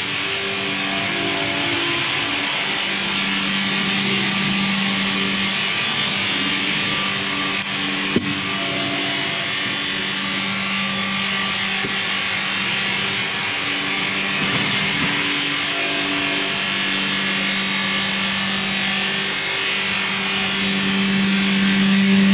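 Electric drive motors of a stainless-steel dual-shaft paste mixer running: a steady whirring with a hum that comes and goes. A single click about eight seconds in.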